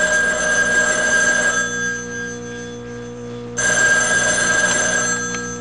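Telephone bell ringing in a double pattern: one ring that stops about a second and a half in, then another that starts just past halfway and lasts about two seconds.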